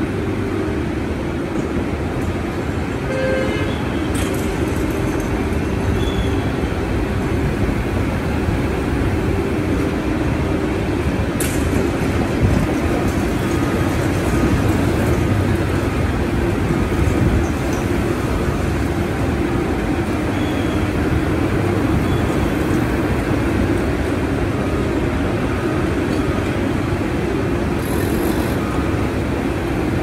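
Steady din of road traffic and construction machinery, with a steady droning tone throughout and a few brief sharp sounds.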